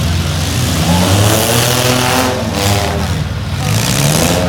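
Demolition derby truck engines revving, their pitch rising and falling.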